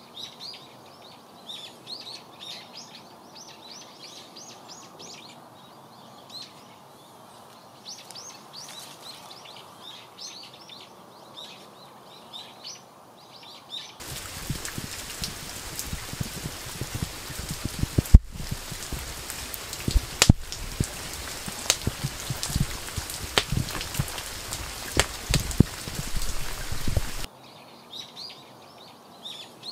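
Small birds chirping over a faint steady hiss. About halfway through, a cut brings in steady rain, loud and close, with sharp drops striking nearby surfaces; it stops abruptly near the end and the birdsong returns.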